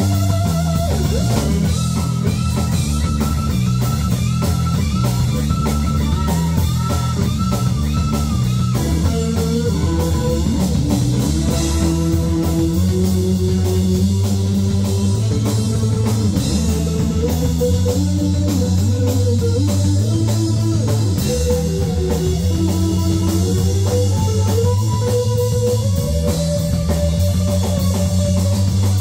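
Live blues-rock band playing an instrumental passage: electric lead guitar holding and bending single notes over bass guitar and drum kit. The lead line sits high at first, moves lower about a third of the way in, and climbs again later.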